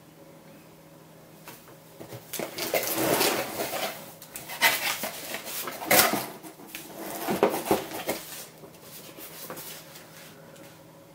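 Handling noise from a train-set box: the packaging insert tray being lifted and shifted against the cardboard box, with paper leaflets rustling, an uneven run of scrapes, rustles and knocks, the loudest knock about six seconds in.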